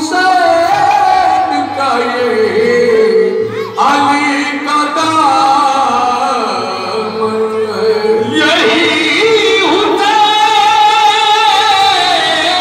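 Devotional qawwali singing: a voice holds long notes that slide between pitches, over a faint steady low hum. A louder, higher phrase begins about two-thirds of the way through.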